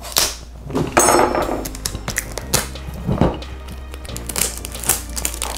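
A cardboard box being slid open and its packaging handled: scrapes, rustles and small knocks, the longest scrape about a second in, over quiet background music.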